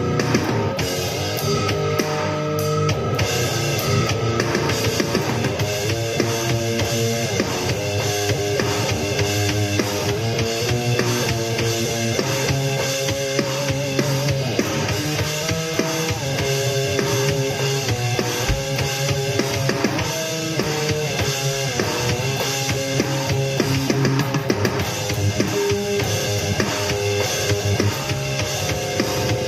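Heavy metal music: electric guitar playing changing melodic lines over a steady drum kit beat, the guitar played along with a drum backing track.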